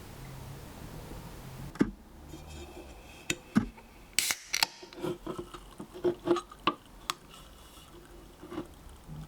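Sharp clicks and taps from a Dr Pepper container being handled, with a short loud fizzing hiss a little over four seconds in as the carbonated drink is opened, then more taps and clicks.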